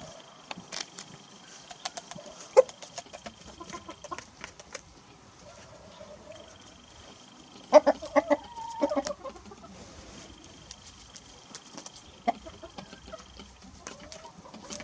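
Grey rooster clucking, with a loud run of short clucks about halfway through, among scattered sharp ticks.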